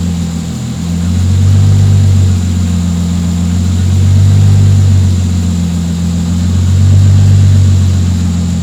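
Toyota 2JZ-GTE twin-turbo straight-six idling, running evenly without a misfire. Its sound swells and fades about every two and a half seconds, a slightly hunting idle that the owner suspects comes from a vacuum leak or the PCV valve.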